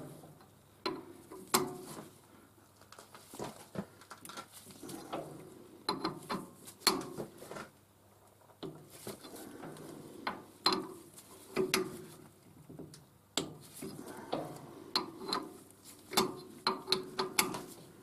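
Irregular metal clicks and knocks from a lathe chuck being handled on a D1-4 camlock spindle nose: the camlocks are tightened in turn with the chuck key and the chuck is turned by hand between them.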